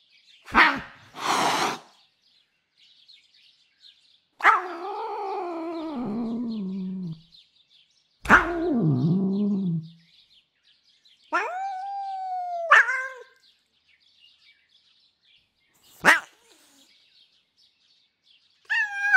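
Domestic cat's aggressive vocalizations played one after another. First a sharp snap followed by a hiss, then two long cries falling in pitch, a few short sharp snipes, and near the end the start of an uncomfortable mewl.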